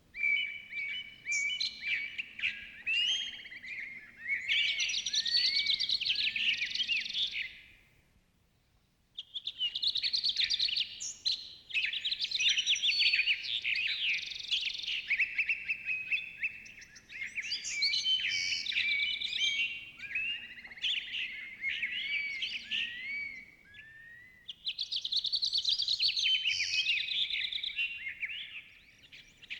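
Many small birds chirping and singing together in a dense, overlapping chorus of quick high chirps and warbles, broken by a near-silent pause of about a second some eight seconds in.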